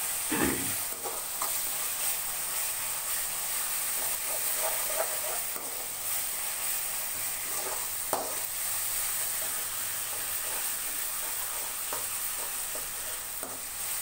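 Chopped onions, garlic and green chili paste sizzling steadily in hot oil in a metal kadai, being fried until the raw smell of the paste goes off. A metal spoon scrapes and knocks against the pan at irregular intervals as it stirs.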